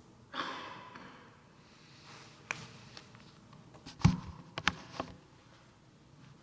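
Rustling followed by a handful of sharp knocks and clicks, the loudest about four seconds in: papers and items being handled and set down at a courtroom lectern.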